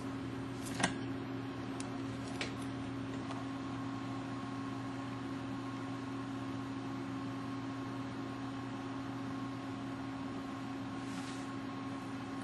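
Steady mechanical hum with constant hiss, as of running equipment. A sharp click comes about a second in and a fainter one at about two and a half seconds, and a faint high steady tone joins a few seconds in.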